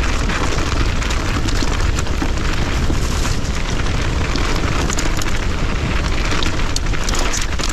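Wind buffeting an action camera's microphone in a steady heavy rumble, with a mountain bike's knobby tyres crunching and ticking over loose gravel as the rider pedals hard at speed.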